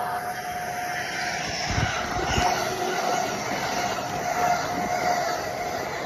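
LEGO toy train running past on plastic track: a steady electric motor whine with the rattle of its wheels, and a couple of low thumps about two seconds in.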